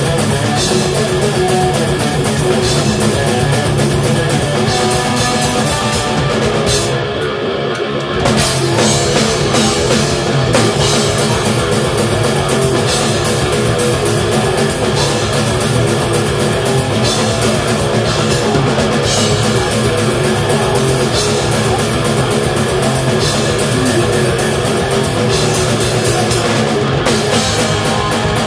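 Melodic death metal band playing live, heard from the drum kit: rapid double-bass kick drums and cymbals under distorted electric guitars. About seven seconds in, the kick drums stop for about a second, then come back in.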